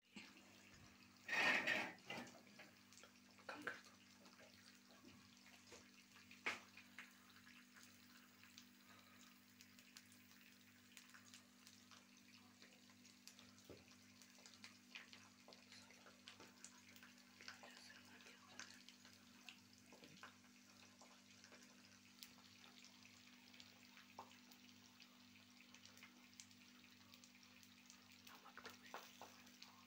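Faint sizzling and crackling of an egg frying in a flat iron pan, many small ticks over a steady low hum. A brief louder noise about a second and a half in.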